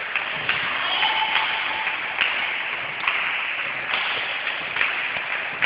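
Echoing sports-hall noise during a volleyball rally: a steady hubbub with sharp slaps and knocks about once a second, the ball being struck and landing, and a brief steady tone near the start.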